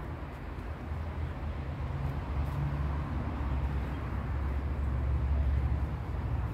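Low, steady outdoor rumble over a faint hiss, growing a little louder from about two seconds in.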